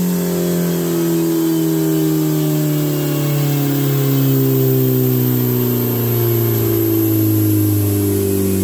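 Turbocharged Suzuki Hayabusa inline-four running on a motorcycle dyno, its engine speed falling slowly and steadily as it winds down on the rollers.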